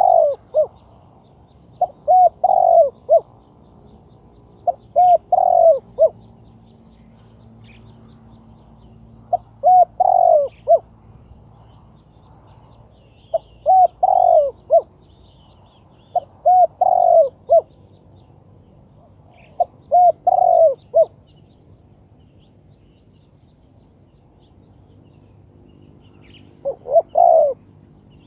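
Spotted dove cooing: about eight short phrases of low, quick coos, repeated every few seconds with a longer pause near the end.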